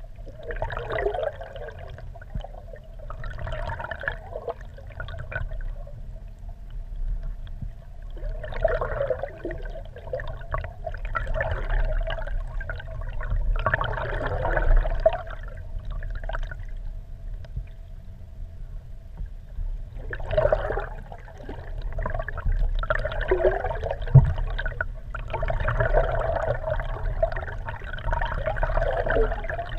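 Lake water gurgling and sloshing around a GoPro's waterproof housing mounted under a kayak, heard muffled through the case. It comes in surges every few seconds over a steady low rumble and a faint steady hum.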